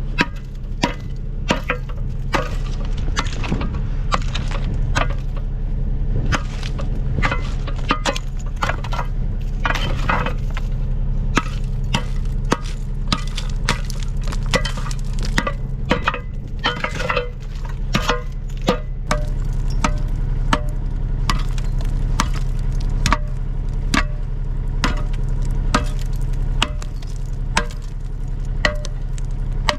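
An engine running steadily, overlaid by many irregular sharp clanks and knocks, several a second at times.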